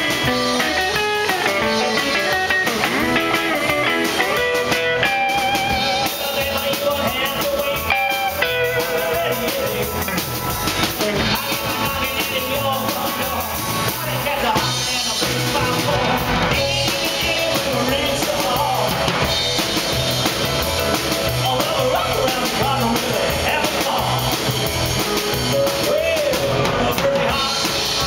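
Live rock and roll band: a hollow-body electric guitar plays a lead solo over drums, and about halfway through a male vocalist starts singing over the band.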